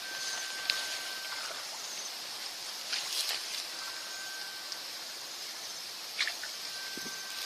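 Outdoor ambience at a ditch: a steady high hiss, a thin tone that sounds for about a second and repeats every three seconds or so, and a few short splashes or knocks.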